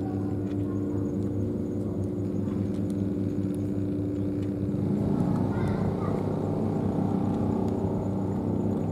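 Steady low engine hum with a few held tones, shifting in pitch and getting a little louder about five seconds in.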